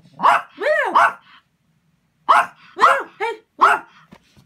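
Yorkshire terrier barking in short, high-pitched yaps: three quick barks, then after a pause of about a second, four more.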